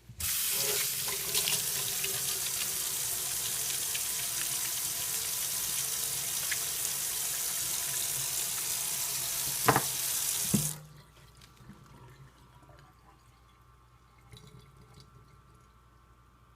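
Tap water running into a sink as lathered hands are rinsed. It comes on right at the start and is shut off abruptly about eleven seconds in, with two sharp knocks just before it stops.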